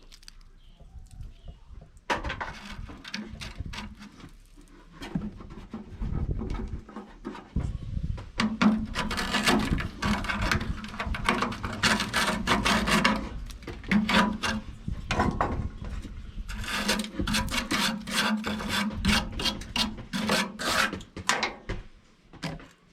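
Scraping away old, crumbling windscreen sealant and rust from a car's rotten windscreen corner, in quick irregular strokes that start about two seconds in and come in bursts.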